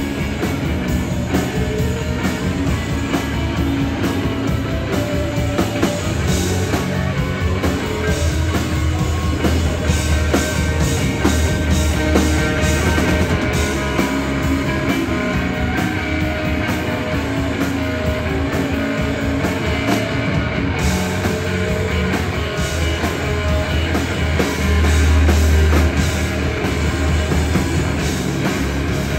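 Rock band playing live: electric guitar and drums over a heavy bass line. It swells briefly louder on a deep low note about 25 seconds in.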